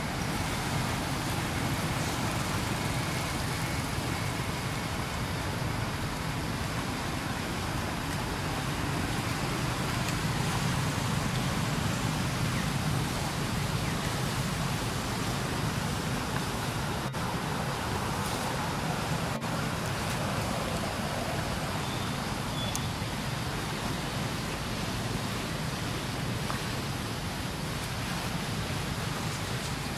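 Steady outdoor background rumble, even in level, with nothing standing out above it.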